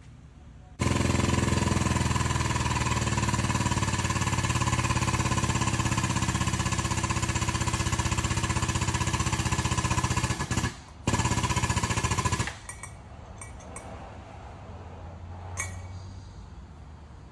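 Hydraulic pump of a frame-straightening bench's pulling tower running, a loud steady rapid chatter while the chain pulls on a car's crushed rear body. It cuts out for a moment, runs again, then stops, leaving only a quiet low hum.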